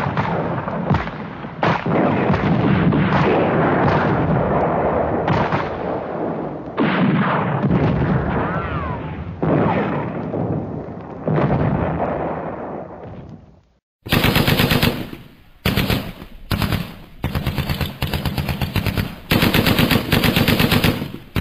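Battle sound effects: a dense run of heavy explosions and artillery fire, each blast swelling and dying away, then, after a brief break about two-thirds of the way through, repeated bursts of rapid machine-gun fire.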